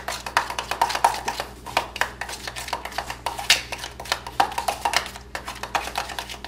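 Metal spoon stirring thick frosting in a stainless steel bowl, scraping and clicking against the bowl's sides in a quick, uneven rhythm.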